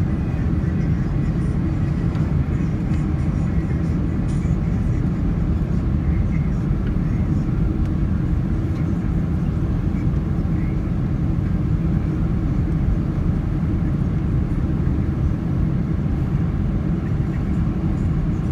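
Steady cabin noise inside a Boeing 767 airliner on its approach to landing: a low, even rumble of engines and airflow.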